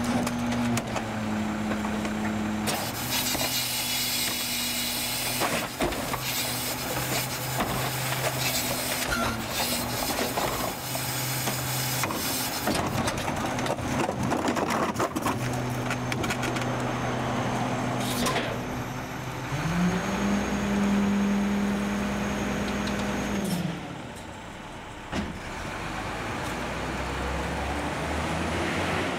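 Garbage truck's diesel engine running at a steady pitch while trash from a cart tipped into the rear hopper clatters and scrapes for several seconds. About two-thirds of the way through, the engine revs up, holds for about four seconds, and drops back.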